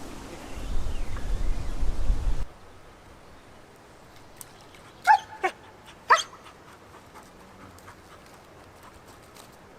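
A dog giving two short, high yips about a second apart, with a fainter one between them. Before that, wind rumbles on the microphone for the first two and a half seconds and cuts off suddenly.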